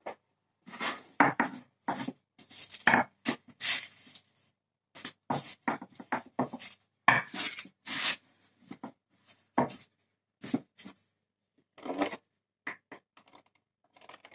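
Wooden rolling pin rolling out pastry dough on parchment paper: short, irregular strokes of rubbing and knocking against the worktop.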